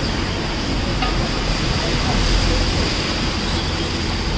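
Steady sizzling of a stuffed paratha shallow-frying in oil on a large iron tawa, over a low rumble of street traffic.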